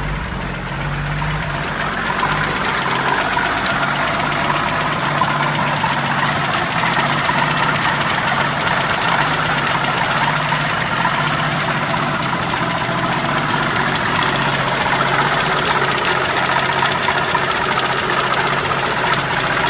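A 1981 Jeep CJ7's AMC 258 (4.2 L) straight-six idling with a knock, which the owner puts down to the beginning of rod knock from a spun rod bearing. The engine gets louder about two seconds in, then runs steadily.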